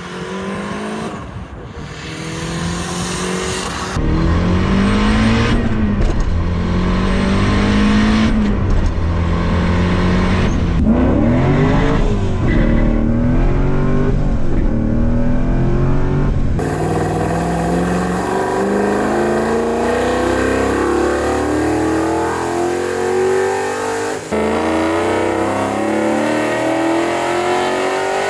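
Car engines under acceleration, cut together from several shots. From inside a car's cabin, the engine climbs in pitch and drops back several times as it shifts up through the gears. In the last part, an engine revs up in one long, steady rise.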